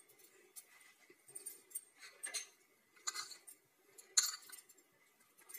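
Light metal clinks and scrapes of kitchen utensils: a spoon knocking against a steel plate and a small tempering pan, a handful of sharp clinks with the loudest about four seconds in.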